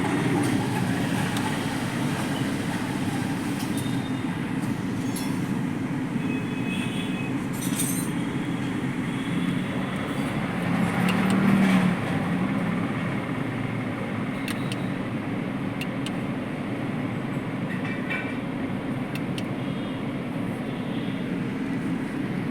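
Steady low rumble of a moving vehicle, with a few light clicks and a brief louder swell about eleven seconds in.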